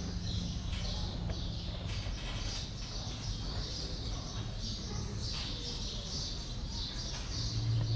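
Outdoor ambience: birds chirping over a steady low rumble.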